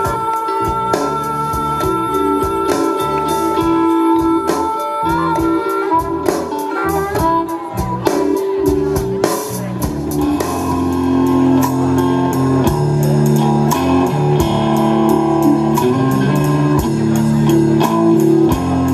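Live blues-rock band: a harmonica played into a hand-held microphone with long held notes and bends over drums and bass for the first several seconds, after which the guitar and bass carry on.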